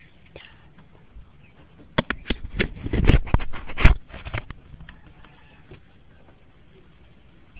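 Handling noise from a phone being moved and repositioned: a quick run of knocks and scrapes against the microphone, bunched between about two and four and a half seconds in, over a faint hiss.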